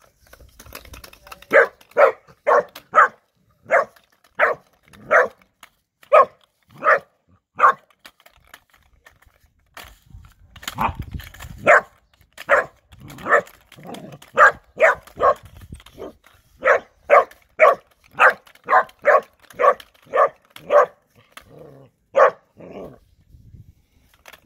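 Three-month-old Bernese Mountain Dog puppy barking over and over, short barks in runs of several with brief pauses between runs. A low rumbling noise joins in about ten seconds in for a couple of seconds.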